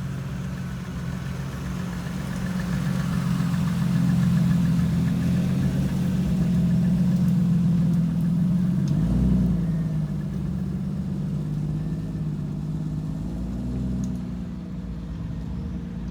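Off-road vehicle's engine running steadily, with brief rises in revs about nine seconds in and again near the end.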